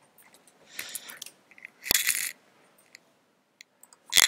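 A few short bursts of light clicking and clattering from small hard objects, about one and two seconds in. After a near-silent pause, louder sharp clicks and rattling start right at the end.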